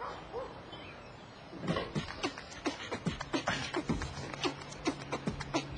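A quick, even rhythm of sharp knocks, about three a second, starting about two seconds in, with a low steady hum joining under them.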